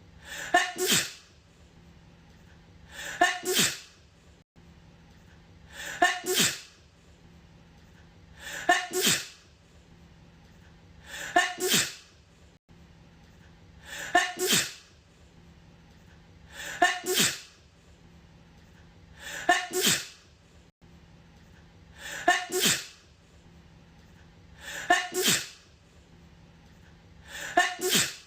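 A woman's sneeze repeated as an identical loop: a short two-part achoo about every two and a half to three seconds, around eleven times.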